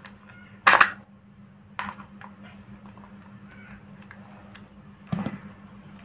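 Handling sounds of hands working a wire into the screw terminals of a switch on a metal mounting plate: a few short clicks and knocks, the loudest just under a second in and another about five seconds in, with a faint steady low hum underneath.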